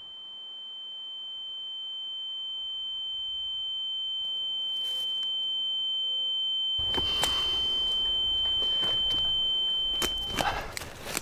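A single steady high-pitched ringing tone, the ear-ringing effect of someone dazed by a blow to the head, swelling slowly louder and cutting off near the end. Rustling and crackling of dry leaves and twigs underfoot join about two-thirds of the way in.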